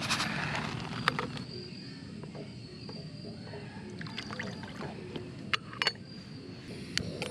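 Rice being rinsed in a small camping cook pot: water trickling and pouring as the pot is tipped, with light metallic clicks and knocks of the pot and its handle, the two sharpest close together a little past halfway. Insects chirp faintly and steadily in the background.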